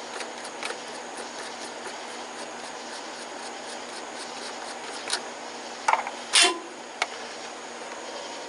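A few sharp clicks and knocks of hands handling and removing the air cleaner cover and filter on a small Briggs & Stratton engine, over a steady background hum. The knocks come in a cluster a little past the middle, the loudest near the end of that cluster.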